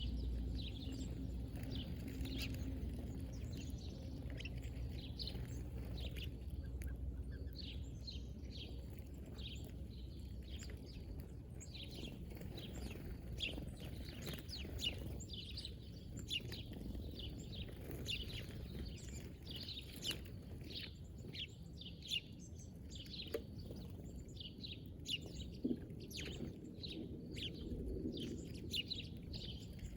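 Several birds chirping, with short rapid calls overlapping and busiest in the second half, over a steady low rumble.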